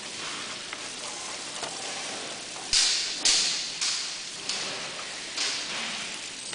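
Water running from a hose fitting onto gloved hands rinsing headed and gutted silver smelt in a steel sink: a steady spatter, with about five louder splashes that each die away quickly, starting a little under three seconds in.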